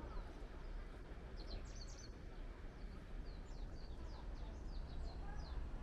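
Small songbirds chirping in the trees, a quick series of short high chirps that each fall in pitch, beginning about a second and a half in, over a steady low outdoor background noise.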